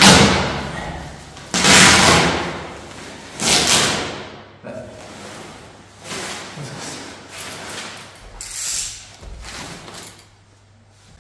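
Plastic packaging rustling and crinkling as a rolled plush carpet is pulled out of its wrapping, in three loud swishes over the first four seconds and quieter rustling after.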